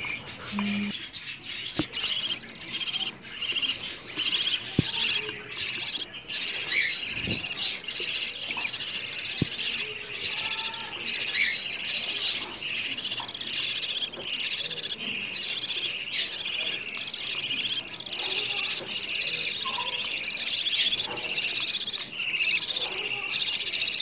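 Budgerigars chirping and chattering in a dense, continuous twitter, with a few soft knocks in the first ten seconds.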